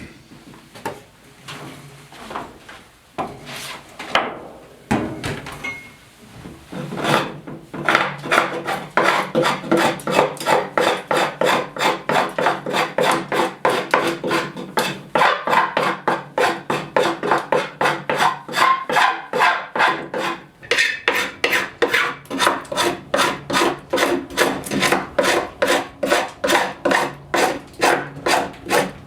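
Sharp hand scraper scraping dried, foamed-out glue flat on a wooden floor joist. A few irregular strokes come first, then quick, even back-and-forth strokes at about three a second, with a brief pause partway through.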